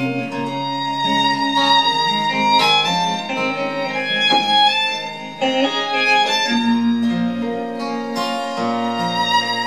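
Live folk-rock band in an instrumental break: a violin plays the lead line in long held notes with slides, over strummed acoustic guitar and a guitar bass line.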